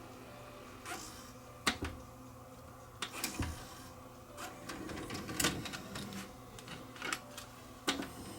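Tascam DA-30 DAT deck's tape mechanism clicking at uneven intervals as the tape is rewound and taken out, over a faint steady hum.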